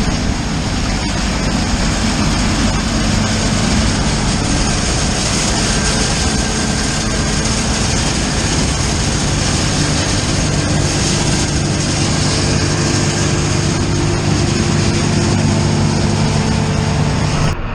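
Farm harvest machinery engine running steadily, under a loud, continuous rushing noise.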